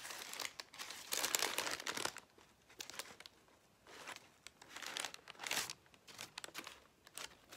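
Paper wrapper crinkling and rustling as a breakfast burrito is unwrapped by hand. The rustling is almost continuous for the first two seconds, then comes in shorter, scattered bursts.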